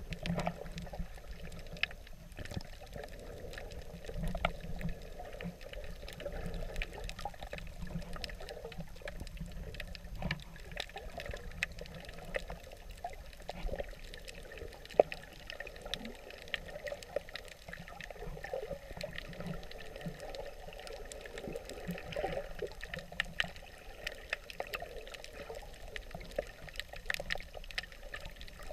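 Water moving and gurgling heard from underwater through a camera's waterproof housing, muffled, with frequent small clicks and crackles throughout.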